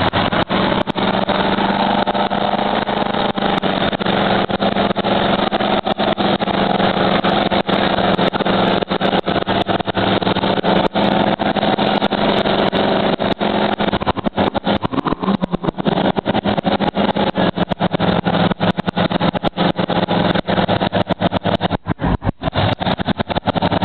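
Old Ford pickup's engine running hard and held at high revs while the truck churns through deep mud on Swamper mud tires, the pitch staying fairly steady, with a dense crackle throughout. The engine note changes about two-thirds of the way through.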